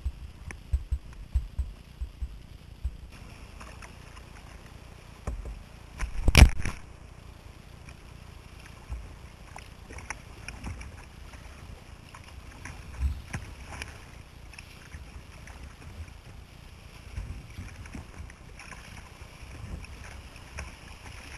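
Kayak on a moving river: water rushing and splashing around the boat, with scattered knocks and low thumps, and one loud, sharp knock about six seconds in.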